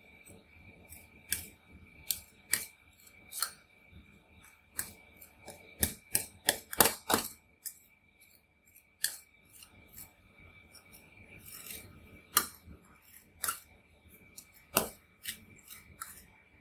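Metal spatula blades tapping and scraping on a stainless steel ice-cream-roll cold plate as a layer of frozen Oreo ice cream is pressed and smoothed. The sharp clicks and taps come irregularly, with a quick run of them about six to seven seconds in.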